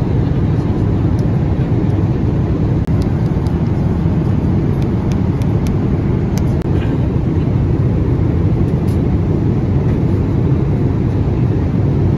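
Steady low rumble of a jet airliner's cabin in flight, with a few light clicks over it.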